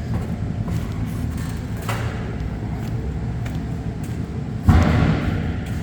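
Steady low mechanical rumble, with a single loud thump a little under five seconds in that trails off.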